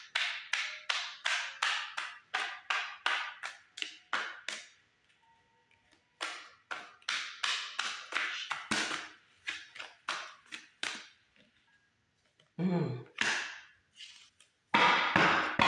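A deck of oracle cards being shuffled by hand, with quick, even swishing strokes about three a second in two runs separated by a short pause.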